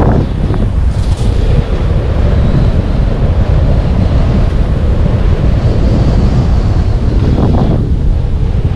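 Wind buffeting the microphone during a fast downhill ski run, with skis hissing through powder snow; a brief louder swish of snow comes near the end.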